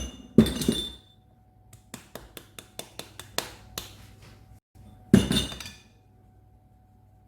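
Glassware clinking against a mixing bowl as flour is tipped into cake batter: a ringing clink at the start, a quick run of light taps a couple of seconds in, then another clink after about five seconds.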